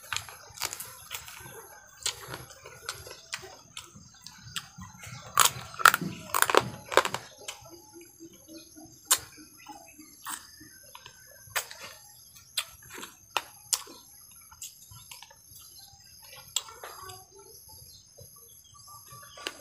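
Crunching and cracking of small crab shells as a person bites and chews: irregular sharp cracks, the loudest bunched about five to seven seconds in. A steady high chirping runs underneath.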